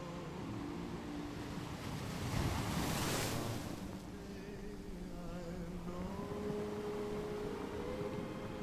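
Ocean surf washing on a beach, with one wave swelling and breaking about two to three seconds in.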